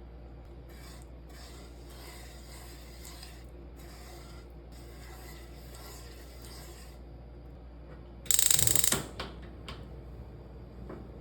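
Kitchen preparation sounds: intermittent faint scraping or rubbing in several short stretches, then a sudden loud noise lasting under a second about eight seconds in, followed by a few small clicks.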